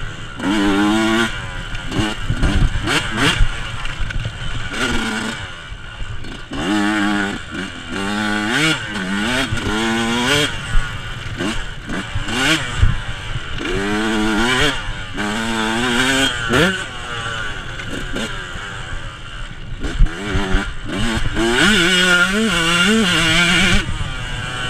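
Yamaha YZ125 two-stroke single-cylinder dirt bike engine revving up and dropping off again and again as it is ridden hard along a rough trail, with knocks and rattles from the bike over bumps.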